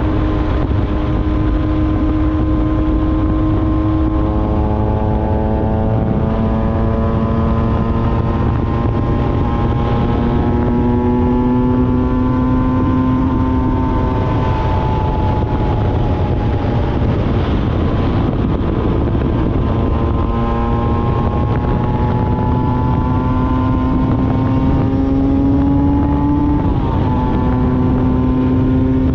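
Honda NSR 125's single-cylinder two-stroke engine running under way, its note climbing slowly and dropping back several times, with wind rushing over the microphone.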